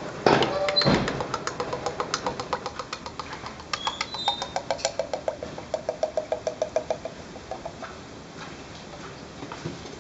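Engine oil glugging out of a metal can into a plastic measuring jug: a loud first gush, then a steady run of about four glugs a second that weakens and dies away near the end.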